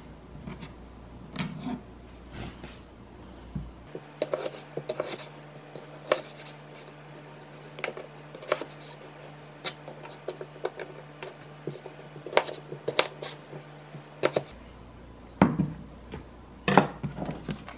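Knife cutting small gold potatoes on a plastic cutting board: irregular knocks and clicks as the blade goes through and hits the board.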